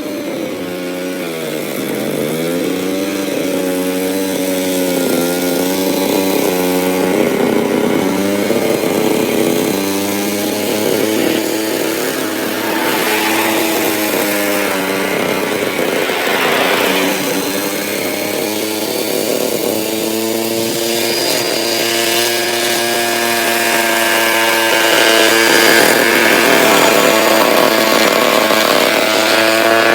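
Handheld grass trimmer's small engine running while cutting grass, its pitch rising and dipping as the load changes, with a sharp dip about two seconds in.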